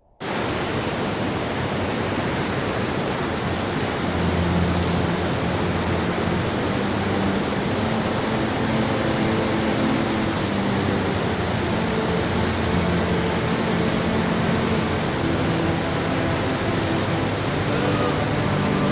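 Waterfall: a steady rush of falling water, cutting in at the very start, with faint low hum-like tones beneath it.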